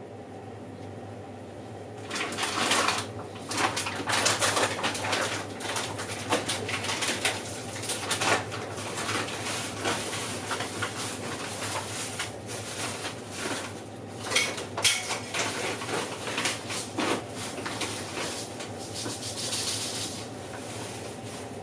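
Oven running with a steady low hum. From about two seconds in, irregular clattering and crackling noises come over it.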